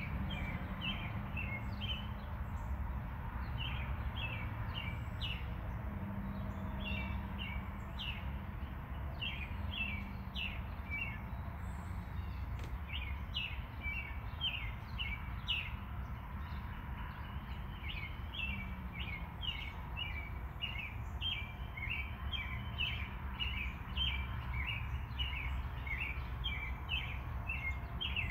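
Small birds chirping in quick clusters of short, high notes throughout, over a steady low rumble.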